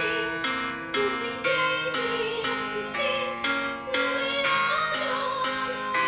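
Music: a woman's high, classical-style voice sings a slow ballad over piano chords repeated about twice a second.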